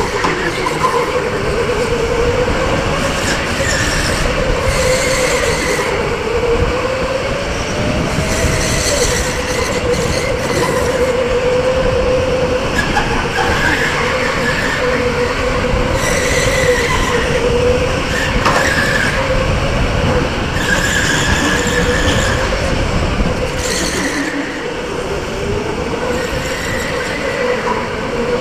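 Electric indoor go-kart at racing speed: its motor whines steadily, the pitch dipping and rising as it slows for corners and pulls out of them. The tyres squeal briefly in several corners, over a rough rumble.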